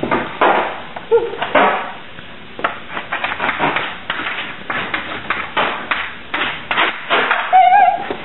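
Chalk knocking and scraping on a chalkboard as a word is written in large letters: a string of irregular taps and scratches. Near the end comes a short, loud, wavering squeal.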